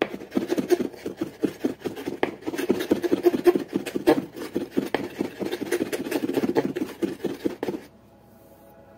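Ginger being grated on a stainless-steel grater: quick, irregular rubbing strokes that stop about eight seconds in.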